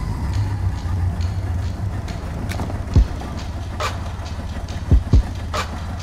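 Low steady rumble aboard a bass boat, broken by a few dull thumps about three, five and six and a half seconds in, with light crinkling as a plastic bag of soft-plastic baits is handled.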